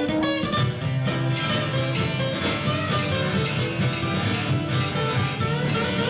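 Acoustic guitars playing live music in a steady, continuous passage.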